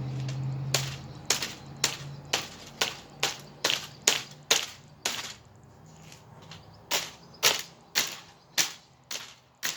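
Repeated sharp blows smashing a plastic box fan, about two a second, with a pause of just over a second about halfway through before the strikes resume.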